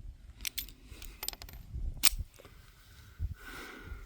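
A few small, sharp metallic clicks and clinks from handling a Jimenez Arms JA22 .22 LR pistol, the loudest about two seconds in.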